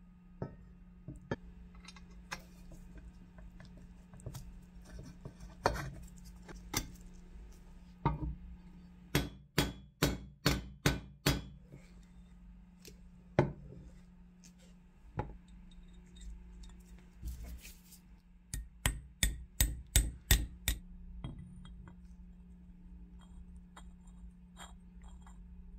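Sharp metal taps and clinks from parts of a cast iron hand grinder being handled and fitted, including two runs of about six quick taps, over a faint steady hum.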